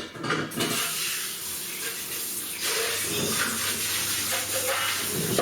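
Kitchen tap running into a sink, the water turning on about half a second in, with a knock at the very start.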